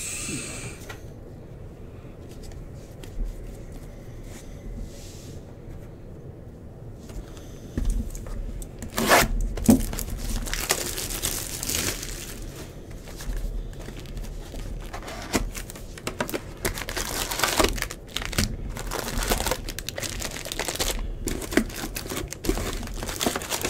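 Tearing and crinkling as a jumbo box of Bowman Baseball card packs is torn open by hand and its foil packs handled, starting about eight seconds in after a stretch of quieter handling.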